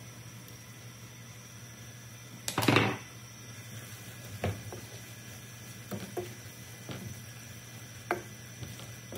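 Wooden spoon stirring frying onions and tomatoes in a nonstick pan, knocking against the pan several times in the second half. A louder, half-second clatter comes about two and a half seconds in, over a steady low hum.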